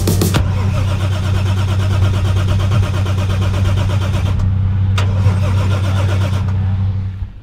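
A vehicle engine idling steadily, with a single sharp click about five seconds in.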